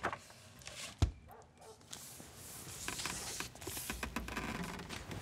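A hardcover picture book shut with a single soft thump about a second in, followed by the rustle of a duvet being pulled up and tucked around a child.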